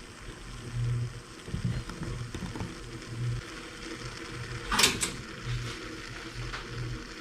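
Kamira stovetop espresso maker brewing on the burner: a low hum pulses on and off about once a second, and about five seconds in a short, sharp double hiss comes as coffee spurts from the spout.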